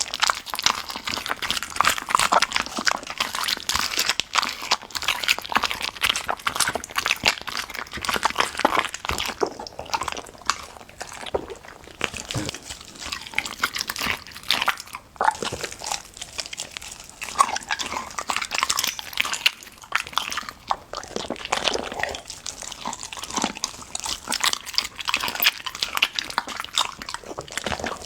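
Golden retriever chewing and crunching raw food in a dense, irregular run of wet bites and cracks, with a couple of brief pauses.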